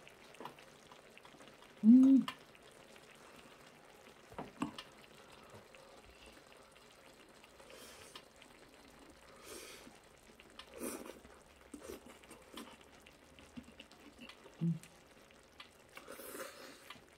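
Close-up eating sounds: chopsticks clicking against a ceramic bowl and wet chewing and slurping of braised kimchi. A brief hummed 'mm' about two seconds in is the loudest sound, with a smaller one about three-quarters of the way through.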